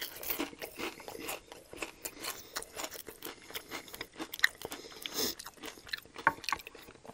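Close-miked chewing of a crispy fried hash brown, with many small, irregular crunches and wet mouth sounds.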